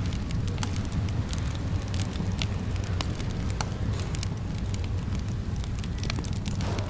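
Fireplace fire crackling: frequent sharp pops and snaps scattered irregularly over a steady low rumble of the flames.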